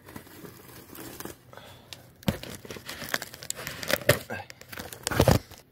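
A cardboard box being cut open with a small blade: tape and cardboard scraping and crinkling, with several sharp knocks as the box is handled, the loudest near the end.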